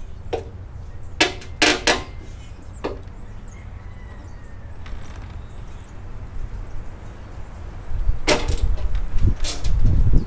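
Several sharp knocks and clicks as an aftermarket bumper impact strip and its clips are pushed and snapped against a car bumper. A low rumble runs underneath and grows louder near the end.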